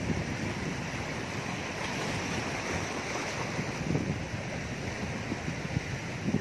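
Sea surf washing over shoreline rocks, a steady rushing hiss that swells around the middle, with wind buffeting the microphone in uneven low gusts.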